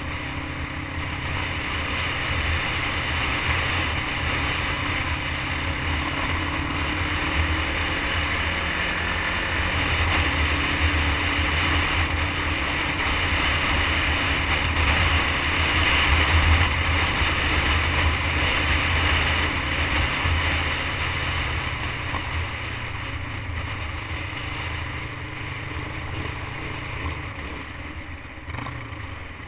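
Motorcycle engine running at road speed with wind rushing over the microphone, swelling to its loudest about halfway through and easing off near the end.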